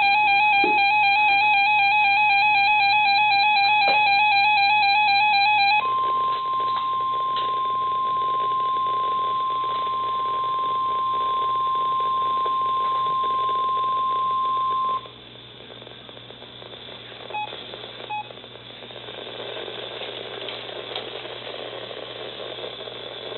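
NOAA Weather Radio Required Weekly Test heard through a weather-radio receiver. It opens with a loud warbling, buzzing tone for about six seconds, then the steady single-pitch 1050 Hz warning alarm tone for about nine seconds, the signal that activates alert receivers. After the alarm tone cuts off there is quieter radio hiss with two brief blips.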